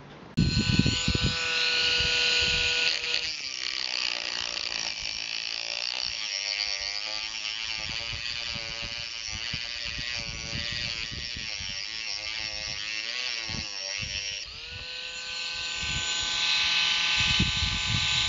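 Dremel rotary tool with a small cut-off disc whining at high speed. While the disc grinds a slot into the head of a shear-off bolt, the pitch drops and wavers under load. It rises back to the free-running whine near the end as the disc comes off the bolt.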